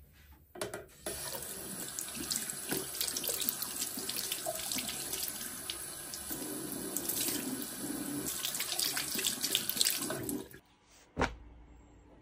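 Water running from a tap into a sink, splashing, shut off abruptly near the end, followed by a single knock.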